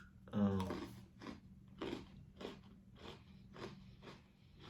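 Close-up chewing of a crunchy birthday-cake-flavoured Oreo cookie, with crisp crunches about two a second. A short vocal sound comes from the eater about half a second in.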